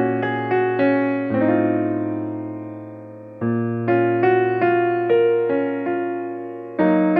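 Background piano music: a slow melody of struck notes over held bass notes, with one chord left to ring and fade for about two seconds before the playing picks up again.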